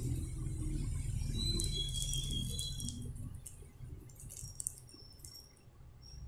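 A soft cloth baby book being handled and closed: faint rustles and light clicks over a steady low hum, with a few short, thin high tones about two seconds in and again near the end.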